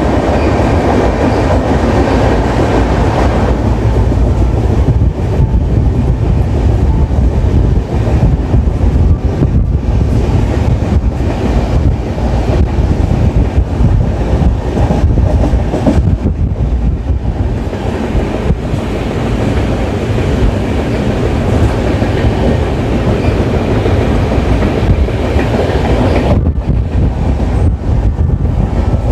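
Gondwana Express passenger coaches running along the track: a loud steady rumble with irregular clacks of the wheels over rail joints.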